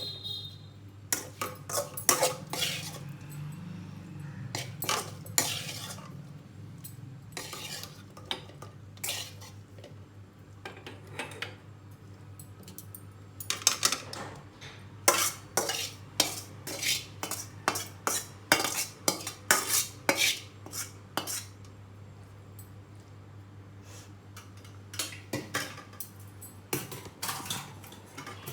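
A metal spoon scraping and clinking against a pan as shallow-fried okra is scooped out into a serving bowl, in bursts of clinks with pauses between. A steady low hum runs underneath.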